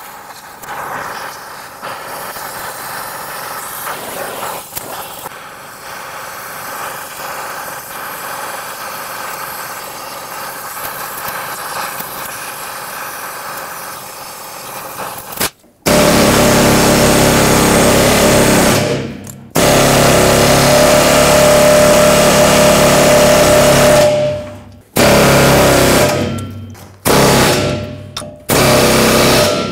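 Acetylene torch flame hissing steadily as it heats the axle knuckle around a rust-seized rear wheel bearing. About halfway through, a pneumatic air hammer starts in loud bursts of a few seconds each, stopping abruptly between them, to drive the heated bearing out.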